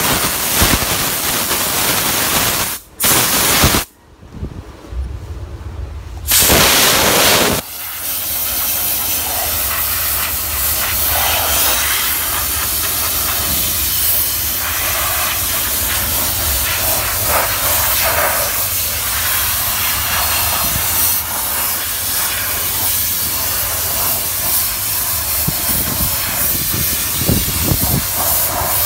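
Handheld steam cleaner gun jetting steam in a steady, loud hiss. The jet stops briefly about three seconds in and again for about two seconds soon after, then runs on steadily. A low hum sits under it.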